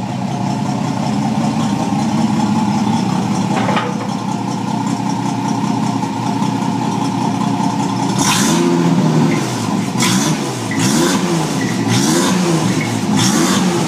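Bentley 4¼ Litre straight-six engine running on its first start after restoration: idling steadily, then revved and let fall back several times in the second half.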